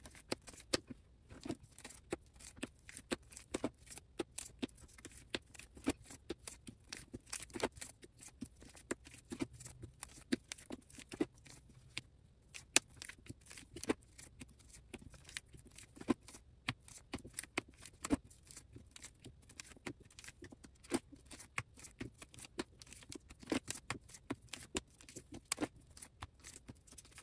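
Plastic-sleeved photocards being slid out of a binder's clear pocket pages and set down on a table: a dense, irregular run of light clicks, taps and plastic rustles, several a second.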